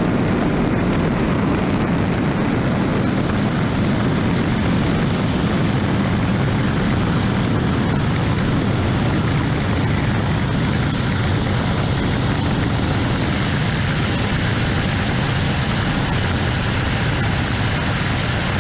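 Racing speedboat engine running loud and steady at high power, with a dense, even noise that stays at one level throughout.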